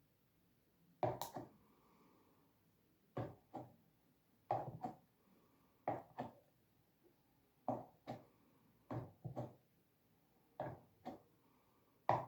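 Repeated light knocks on a tabletop, mostly in pairs, about every second and a half, as something is pressed or tapped onto paper.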